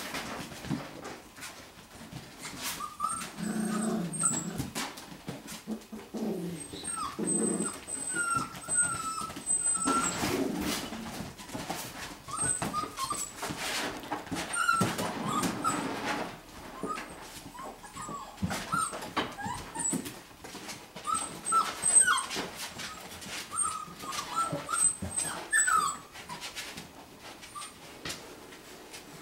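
Five-week-old golden retriever puppies whimpering, with many short high-pitched squeaks and whines scattered throughout, and brief knocks and scuffles as they play.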